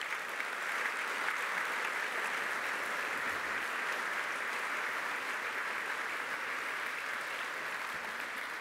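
A large audience applauding, a dense steady clapping that holds throughout.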